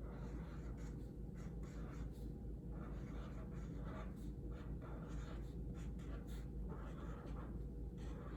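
Writing on a paper anchor chart: a string of short scratchy strokes with brief pauses between words, over a steady low hum.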